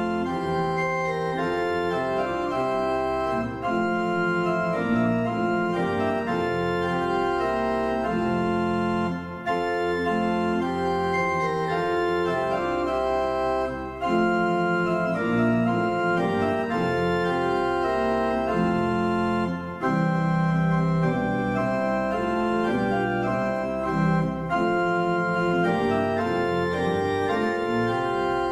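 Church pipe organ playing in full sustained chords, phrase by phrase, with a short break about every five seconds.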